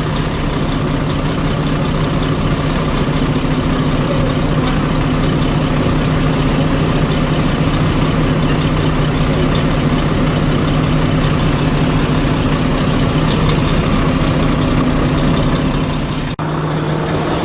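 Volvo FH4 truck's diesel engine idling steadily while warming up after a valve adjustment, with no knock standing out at this point.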